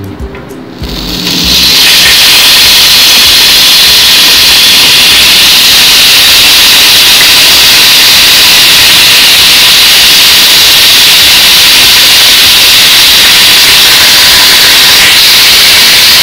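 Marinated beef tikka boti skewers sizzling loudly in hot oil on a flat griddle (tawa): a steady frying hiss that swells up about a second in and then holds, cutting off suddenly at the end.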